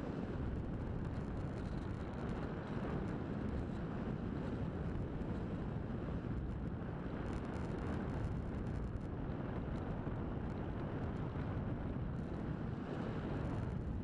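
Steady rush of air over the onboard camera's microphone as an RC V-tail glider flies.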